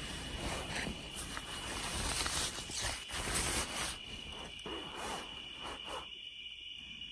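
Night insects trilling steadily on one high pitch, with repeated bursts of rustling noise on top that die away about six seconds in.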